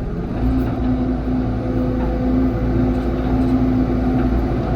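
Excavator's diesel engine running steadily with a constant drone while the machine works rock.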